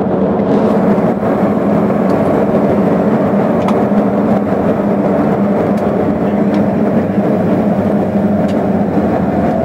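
Cabin noise of a high-wing propeller airliner moving along the runway: a loud, steady drone of engines and propellers with a constant pitch.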